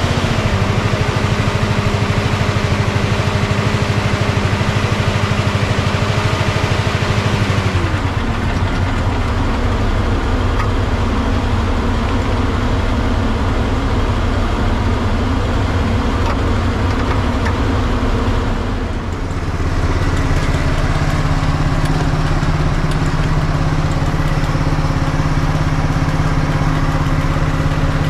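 Fire truck's diesel engine running steadily. Its pitch falls as it slows about a second in and again about eight seconds in, then it dips briefly and settles at a higher speed about twenty seconds in.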